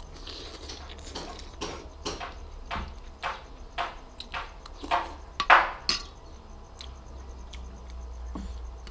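Someone eating soup: a metal spoon clinks and scrapes against a ceramic bowl, mixed with mouth sounds of eating. It comes as a string of short, sharp sounds, the loudest a little past halfway, and thins out over the last few seconds.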